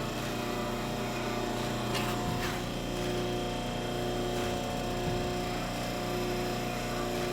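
Steady electrical hum with several fixed tones, and a few faint light taps about two and three seconds in.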